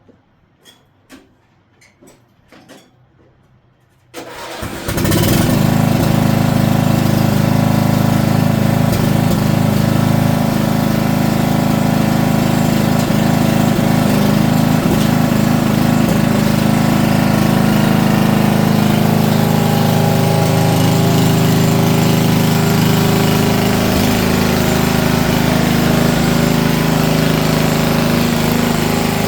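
A few faint clicks, then a small gas engine starts about four seconds in and runs steadily and loudly for the rest of the time.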